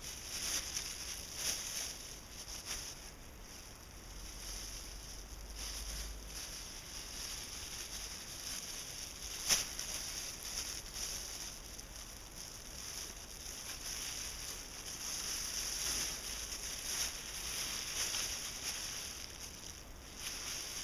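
Thin plastic bag rustling and crinkling as gloved hands work it over and around a plant. The crackle comes and goes irregularly, with one sharp crinkle about ten seconds in.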